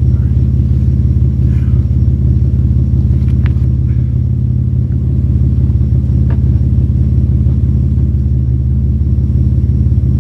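A vehicle engine idling steadily with an even, low rumble, with a couple of faint clicks over it.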